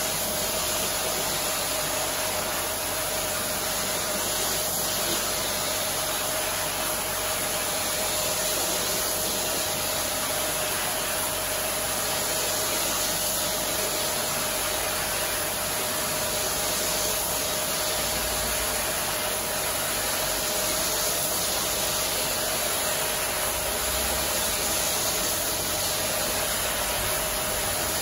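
Pressure washer jet spraying water onto a wet shaggy rug: a steady hiss of spray, with an even tone running under it throughout.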